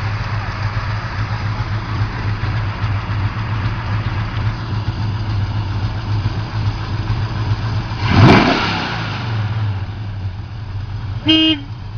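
Plymouth Road Runner's 440 Six Pack V8 idling steadily, blipped once about eight seconds in with a short rev that rises and falls back to idle. A short horn beep near the end.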